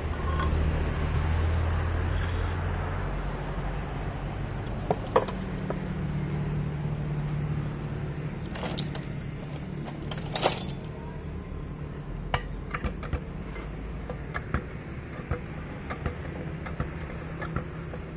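Metal clinks and knocks from handling a single-phase electric motor and hand tools: a few sharp ones about five and ten seconds in, then a run of lighter ticks in the second half. Under them is a steady low rumble.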